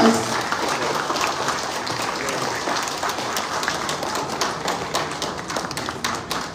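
A crowd of people applauding, many hands clapping together; it thins out and gets quieter toward the end.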